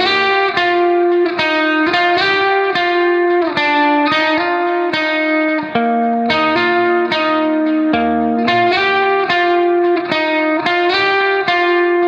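Background instrumental music: a melody of plucked notes, two to three a second, over sustained chords.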